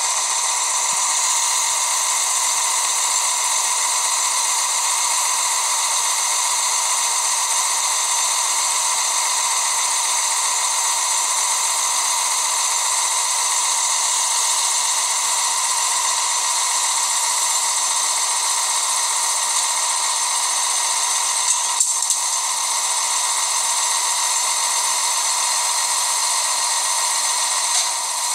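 A steady, even hiss with no rhythm, high in pitch and with almost no low end, broken only by a couple of faint clicks about three-quarters of the way through.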